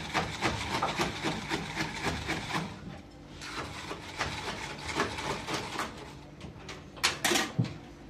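Bar spoon stirring ice in a plastic cup of caipirinha, a rapid rattling and scraping that pauses briefly about three seconds in. Two louder knocks near the end.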